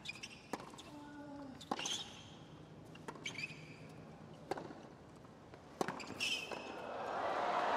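Tennis rally on a hard court: several sharp racket strikes on the ball about a second or so apart, a player's grunt, and sneaker squeaks. Crowd noise swells up near the end as the point finishes.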